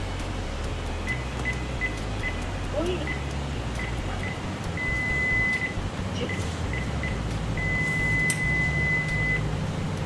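Electronic beeping from the control panel of a Snap-on PS134 car A/C service station: a run of short, high beeps as its keys are pressed, with a longer beep about five seconds in and a long one near the end.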